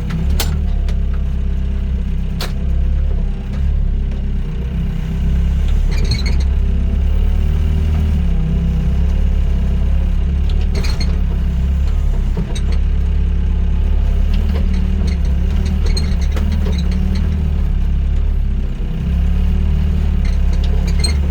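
Doosan DX55 mini excavator's diesel engine running steadily while the machine works, with a few sharp metallic clanks.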